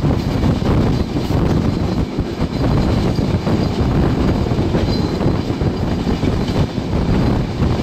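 Passenger train coach running on the rails, heard from the carriage window: a steady, deep running noise of wheels and bogies, with a faint high wheel squeal now and then.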